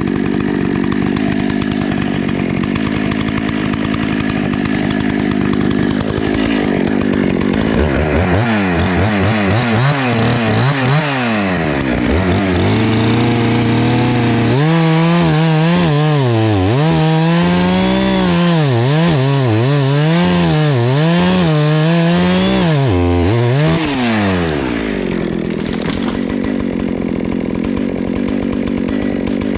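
Husqvarna 288XP two-stroke chainsaw running while cutting wood. From about a quarter of the way in until near the end, its engine pitch rises and falls repeatedly, about once a second, before settling back to a steady run.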